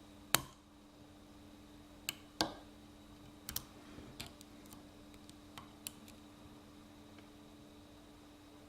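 Lock pick and tension wrench clicking in the keyway of a six-pin Kryptonite padlock as the pins are worked. A sharp click comes right at the start, then a scattered run of smaller clicks over the next five seconds.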